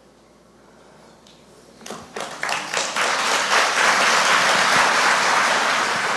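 Church congregation applauding: a few separate claps about two seconds in, quickly swelling into full, steady applause.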